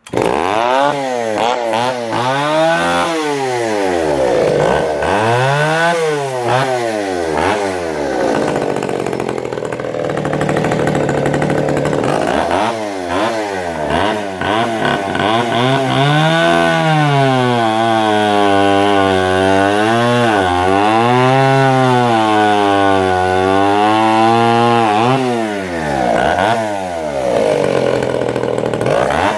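Echo CS-302 two-stroke chainsaw revving up and down several times, then held at high speed for a long stretch with the pitch wavering as it works through a cut in wood.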